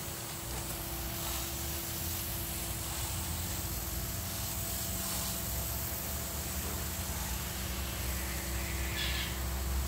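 Steady hiss of a hose-fed spray wand spraying liquid over potted plants, over a low mechanical hum. A brief, higher hiss comes about nine seconds in.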